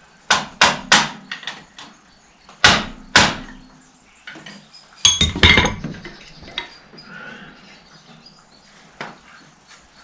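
Sharp metal knocks and clanks from tools and parts being handled: three quick knocks, two more a couple of seconds later, then a clatter with ringing metal about halfway through, followed by a few light clicks.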